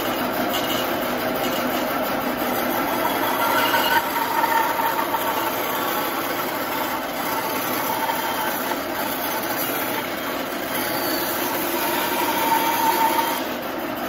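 Bandsaw running and ripping a slab of log lengthwise, the blade cutting steadily through the wood, louder for a moment about four seconds in and again near the end.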